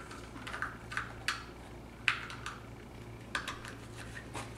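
Scattered light plastic clicks and taps as a camera battery charger and its cord are handled and a battery is pushed into the charger.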